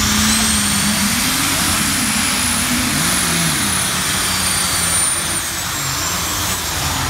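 Pulling tractor's engine running flat out under load, loud and steady, with a high whine that climbs over the first second, holds, and falls away about two-thirds of the way through.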